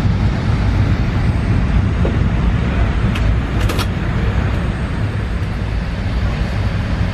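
Steady low rumble of a parked Boeing 787-8's passenger cabin, with a few brief clicks a little past three seconds in.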